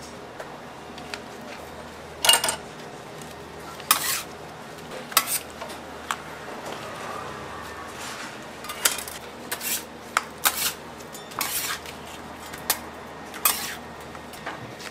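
Metal tools clinking and knocking on a stainless steel candy-making table: about a dozen sharp clanks at irregular intervals, the loudest about two and four seconds in, over a steady low hum.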